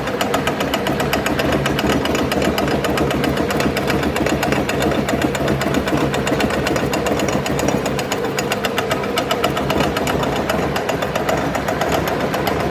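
Rotary tiller's engine running steadily with a rapid, even beat as the machine tills the soil.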